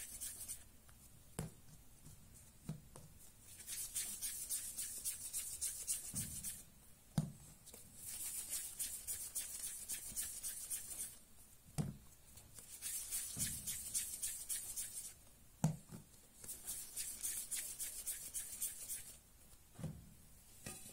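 Floured bread dough being rolled into balls between the palms: a dry rubbing hiss lasting two or three seconds at a time, about five rounds, with a dull knock between rounds as a ball is set down on the wooden board.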